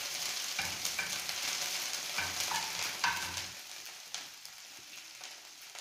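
Ginger, mustard seeds and cumin seeds sizzling in hot oil in a frying pan, a tempering of spices, while a metal spoon scrapes and stirs them a few times. The sizzle dies down after about three and a half seconds as the gas flame is turned down.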